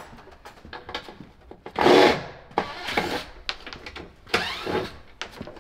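Several short bursts of tool and wood noise as wooden van cabinetry and its screws are taken apart, the loudest about two seconds in, with a squeal that wavers in pitch a little before the end.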